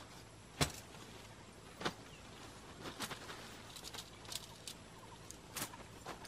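Crinkling and rustling of a plastic groundsheet and sleeping bag as they are unrolled and spread out. Sharp crackles come about once a second over a faint steady hiss, the loudest about half a second in.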